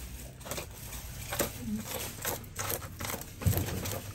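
Knife scraping the scales off a salted, sun-dried fish in an enamel basin: irregular scratchy scrapes and crackles, with a dull knock near the end.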